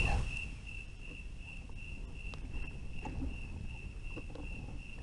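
A cricket chirping in an even rhythm, about three high chirps a second, over a low outdoor rumble.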